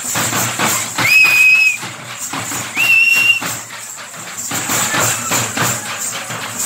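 Two long, shrill whistle blasts, each held at a steady pitch for about half a second, come about a second and two seconds in. Drums beat steadily throughout.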